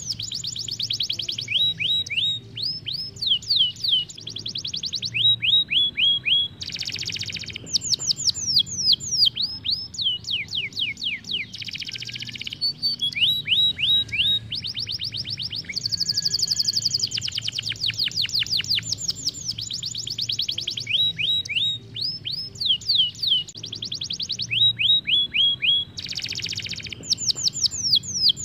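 Isabel canary singing a long, continuous rolling song: fast runs of falling notes, broken now and then by short buzzy trills.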